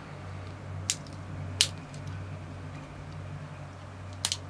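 Victorinox Cyber Tool Swiss Army knife clicking as its fold-out tools are handled: three sharp clicks, about one second, one and a half seconds and four seconds in, the middle one loudest, over a steady low hum.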